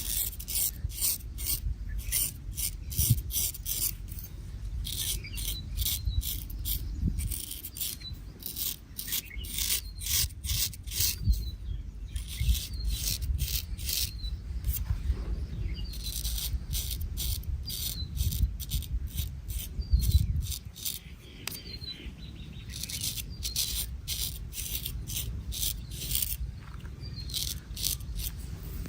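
Straight razor scraping across stubble in runs of short, quick strokes, several a second, with brief pauses between runs, over a low rumble.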